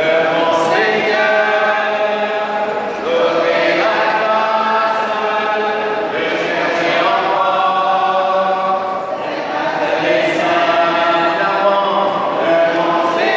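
A congregation singing a hymn together, in long held phrases that break about every three seconds.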